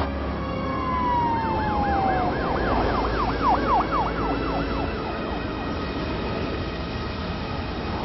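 A siren over a steady low rumble. It gives one falling wail in the first couple of seconds, then a fast rise-and-fall yelp of about four or five cycles a second that fades out around the middle.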